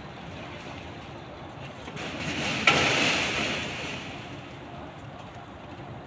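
Road traffic below: a vehicle passes, its noise swelling for about two seconds in and fading away over a steady background hum of traffic.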